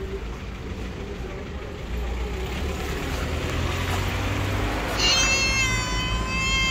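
Tabby cat meowing: one long, drawn-out meow of about two seconds, starting about five seconds in, over a low background rumble.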